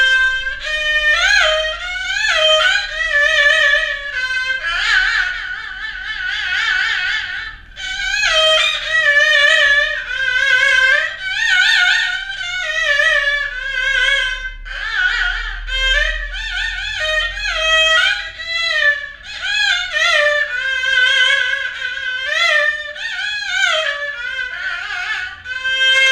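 Haegeum, the Korean two-string bowed fiddle, playing the slow jinyangjo movement of a haegeum sanjo solo. It is a single bowed melody with wide, wavering vibrato and sliding pitches, played in phrases with short breaks between them.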